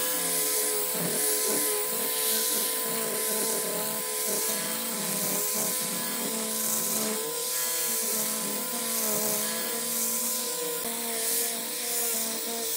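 Small handheld electric sander with a round disc pad running against a wooden block, its abrasive rubbing across the grain. The motor whine is steady and wavers slightly in pitch as the pressure changes.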